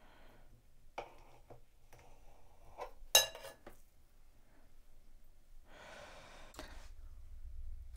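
Kitchen shears snipping cooked sweet potato: a few light clicks and snips, with one sharp ringing metallic clink about three seconds in. A short breathy sound follows near the end.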